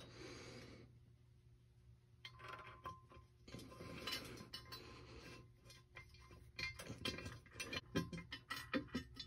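Faint metallic clinks and scrapes as bolts are fitted by hand into an aluminum Edelbrock intake manifold to act as guide pins while it is lined up on a small-block Ford V8's heads. The clicks come thicker and sharper in the second half.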